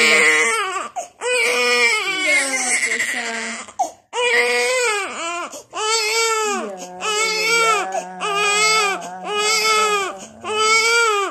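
A baby crying hard: a long run of wailing cries, each about half a second to a second long, rising and falling in pitch, with short breaks for breath between them.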